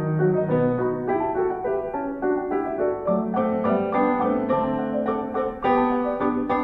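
Background piano music, a steady run of notes with no cooking sounds heard.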